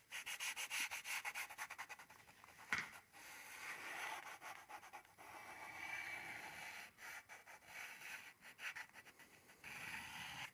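Pastel stick scratching and rubbing on drawing paper: a run of quick short strokes, then longer, steadier rubbing strokes as a line is drawn in.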